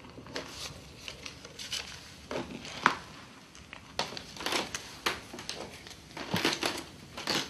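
Irregular light clicks, taps and rustles, starting about half a second in, with the sharpest click near the middle and a denser run of taps near the end.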